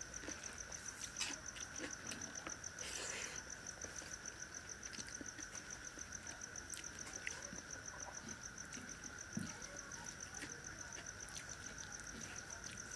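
Insects chirping steadily: a high, rapidly pulsing trill over a lower steady drone. Faint scattered clicks and smacks of someone eating rice and curry by hand.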